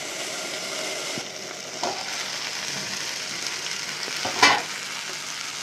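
Ivy gourd, tomato and green chillies frying in an aluminium kadai with a steady sizzle, with a small knock about two seconds in and a louder, sharp knock near the end as the pan is uncovered and handled.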